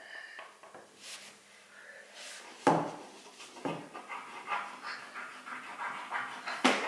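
Crayon scribbling hard back and forth on paper over a wooden table: a run of quick scratchy rubbing strokes, with a few louder strokes near the middle and the end.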